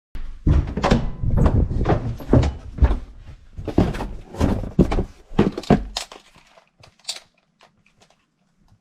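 A rapid series of a dozen or so heavy thumps and knocks over about six seconds, then a few fainter clicks that die away.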